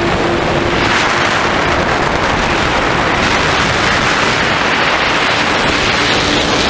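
Steady rush of air over an FPV model plane's onboard microphone in flight, with a faint steady motor and propeller hum that fades about a second in and returns near the end.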